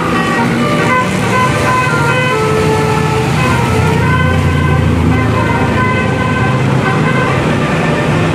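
Bus telolet horn of the Basuri type, a multi-tone musical horn, playing a quick tune of short, changing notes. A steady low engine rumble runs underneath.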